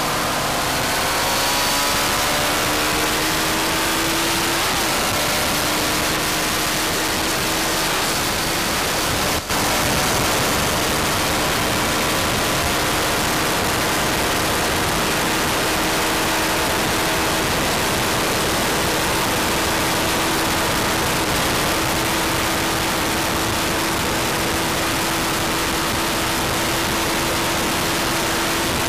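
Honda CBR1100XX Blackbird's water-cooled inline-four engine running hard at high speed, its pitch rising over the first few seconds and then holding steady, buried in heavy wind rush on the tank-mounted microphone.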